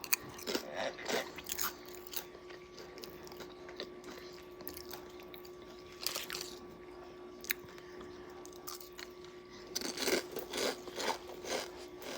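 Crunching and chewing of food in scattered bites, coming thicker about ten seconds in, over a faint steady hum.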